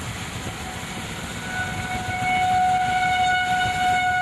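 A steady single-pitched tone that grows louder about a second and a half in, over a low rumbling noise.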